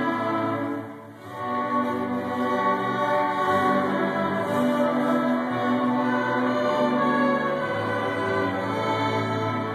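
Student string orchestra of violins, cellos and a double bass playing a piece together, with a short break in the playing about a second in before the strings come back in.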